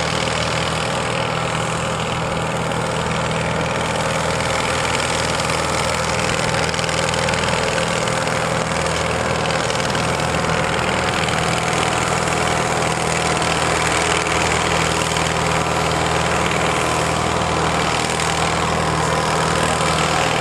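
Diesel pulling tractor's engine running steadily at low revs while it moves the weight sled slowly down the track, growing a little louder toward the end.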